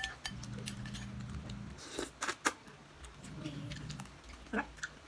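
Eating sounds: a mouthful of lomi noodles being chewed, with sharp clicks of a metal fork and spoon against a glass bowl, three in quick succession about two seconds in. A short murmur of the voice comes near the end.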